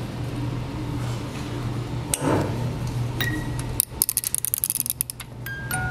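Carousel music box being handled and wound: a couple of sharp knocks, then a rapid run of ratcheting clicks for about a second and a half, and near the end the first plucked metal notes of its tune begin.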